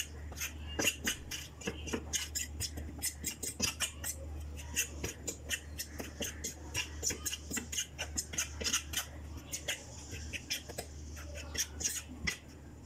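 A spoon scraping and clicking against a plate in quick, uneven strokes, several a second, as it stirs dry flour, over a low steady hum.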